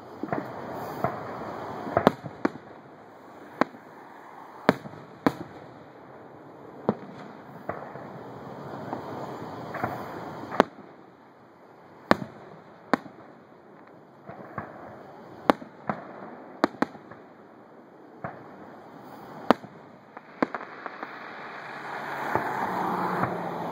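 Fireworks display: aerial shells bursting in a long string of sharp bangs at uneven spacing, roughly one a second, over a steady background noise that swells louder near the end.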